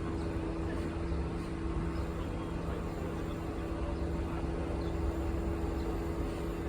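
Steady low engine hum with a constant drone and low rumble, typical of a vehicle's diesel engine running at a distance.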